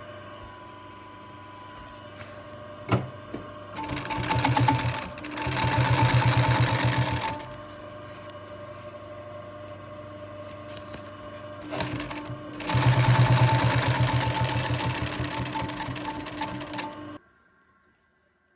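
Ivomaq industrial sewing machine stitching through leather at a short stitch length, in three runs of fast, even rattling, the middle one the shortest pair and the last the longest, with the motor humming steadily in between and a few sharp clicks. The sound cuts off suddenly near the end.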